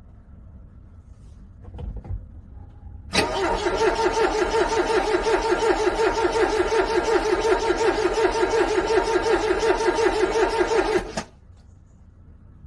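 Car starter motor cranking a cold engine for about eight seconds, a pulsing whir at about five beats a second, with no sign of the engine catching; it stops abruptly. A short soft knock comes about a second before the cranking starts.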